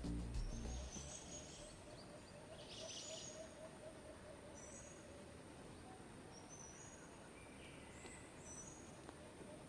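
Faint birds chirping over quiet rural ambience, short high chirps recurring every second or two.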